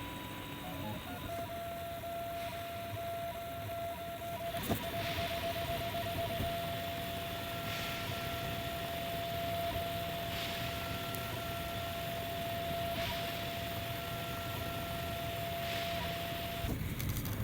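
A 3D printer running, its stepper motors giving a steady whine that holds one pitch for most of the time, with a fainter higher tone coming and going and a soft swell of hiss every two to three seconds.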